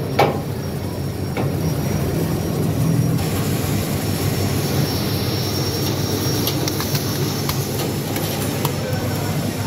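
Porang tuber washing machine running with a steady machine noise, tubers tumbling inside. Scattered short knocks from about the middle on as washed tubers drop out onto the floor.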